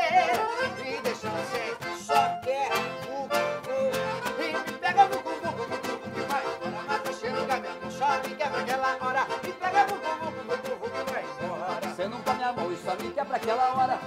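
Live band music led by a piano accordion playing the melody, with acoustic guitar and a steady, even beat underneath.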